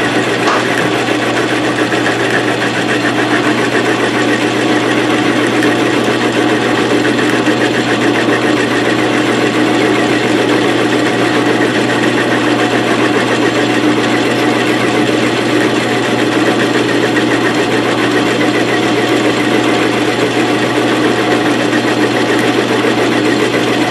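South Bend 13-inch metal lathe running steadily while the tool takes a turning cut on the spinning workpiece: an even drone of motor and gearing with the cut mixed in.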